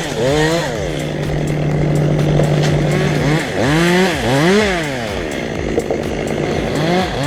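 Two-stroke chainsaw running at full throttle for about three seconds, then revved up and down again and again as the throttle is released and squeezed.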